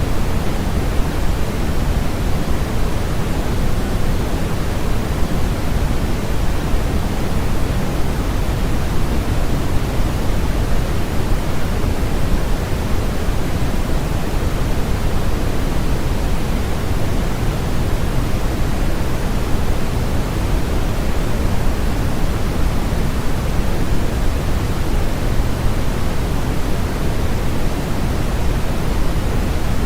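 Steady, unchanging synthetic noise, an even hiss with more weight in the low rumble than in the highs, closer to pink noise than to true white noise.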